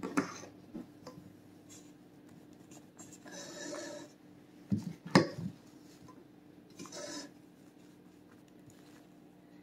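Spatula scraping and knocking against a metal bowl and tube pan while thick whipped egg-white batter is dropped in: a few short scrapes, with two sharp knocks about five seconds in the loudest.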